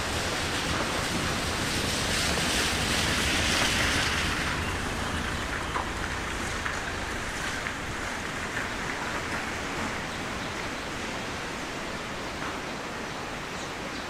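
Outdoor wind rushing, swelling over the first few seconds and then easing back to a steady hiss.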